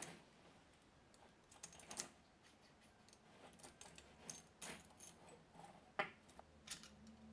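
Faint, irregular metallic clicks and light clinks from a spiral-wound metal shower hose and its end nut being handled, with the sharpest clicks about two seconds in and about six seconds in.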